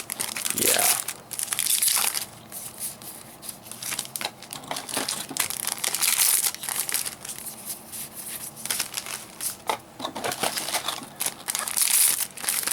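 Foil booster-pack wrappers crinkling and being torn open by hand, in irregular bursts of crackling that are loudest about six seconds in and again near the end.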